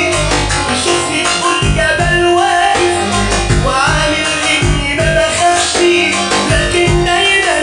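Electronic music with a keyboard melody over a steady bass beat.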